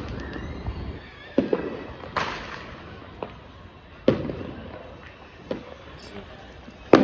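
Firecrackers or fireworks going off: several sharp bangs at uneven intervals, each trailing off into a fading echo.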